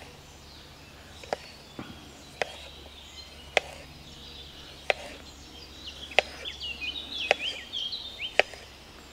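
Knife slicing through a raw potato and clicking down onto a wooden cutting board, about nine sharp strokes at roughly one a second.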